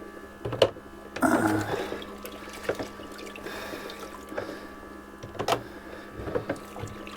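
Water splashing and running as dishes are rinsed in a sink, with occasional sharp clinks and knocks of dishware.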